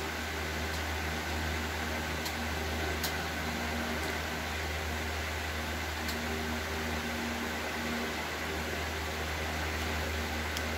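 Steady low machine hum with an even hiss, like an electric fan or similar appliance running in a small room, with a few faint clicks.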